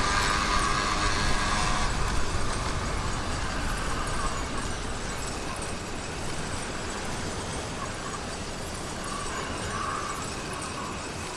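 Motorized bicycle's two-stroke engine (YD100 kit with a windowed piston) running during a ride. The engine note is strongest in the first two seconds, then drops back under a steady rushing noise.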